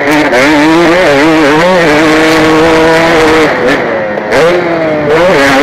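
KTM 250 motocross bike engine running hard under the rider, its pitch rising and falling with the throttle and held steady in the middle. It backs off about three and a half seconds in, then picks up again.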